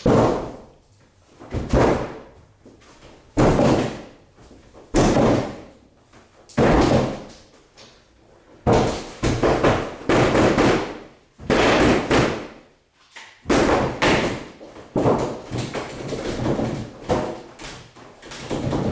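A wooden door banged hard again and again, a heavy thud about every one and a half seconds, each dying away in a long echo. In the second half the blows come faster and run together.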